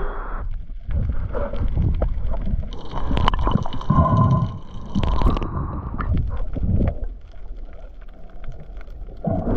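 Water gurgling and sloshing around an underwater camera, with scattered clicks and knocks as a fish is handled onto a metal stringer.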